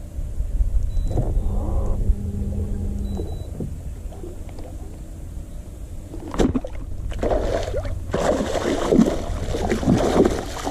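A hooked bass thrashing and splashing at the water's surface through the last few seconds, after a sharp knock about six seconds in. A steady low rumble runs underneath.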